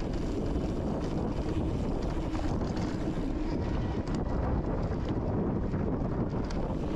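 Wind rushing over the microphone of a camera on a mountain bike moving down a dirt trail, with the tyres rumbling over rocky ground and a few sharp rattles of the bike over bumps.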